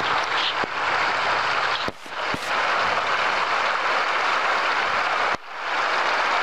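Steady rushing hiss of flowing river water, dipping briefly twice.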